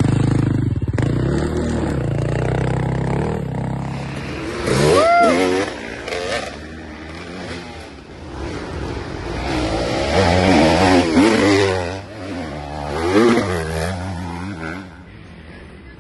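Off-road dirt bike engines revving in repeated bursts, the pitch rising and falling again and again as bikes climb and pass. The loudest bursts come about five seconds in and again around ten to thirteen seconds in.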